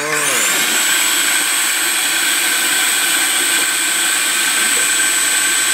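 Electric food processor starting up and running steadily at high speed, beating eggs for Swiss roll batter. Its motor whine rises briefly as it spins up at the start, then holds even.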